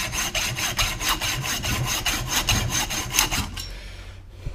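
Hacksaw sawing at the old rubber boot of a CV joint on a drive shaft, in quick, even back-and-forth strokes, several a second. The sawing stops about three and a half seconds in.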